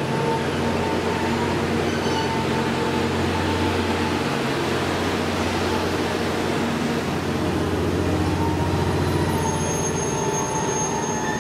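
JR West 87 series Twilight Express Mizukaze, a hybrid diesel-electric train, running slowly along the platform with a steady low hum of machinery and rolling noise.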